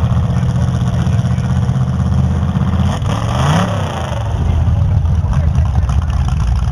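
Demolition derby car engine running, with one brief rev that rises in pitch and drops back about three seconds in.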